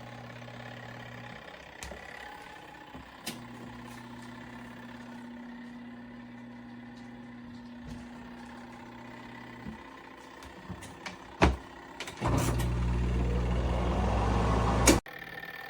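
Motor of a Giantex portable twin-tub washing machine humming steadily, stopping briefly and starting again, then stopping. A few knocks follow, then a much louder rushing noise over a low hum for about three seconds that cuts off abruptly.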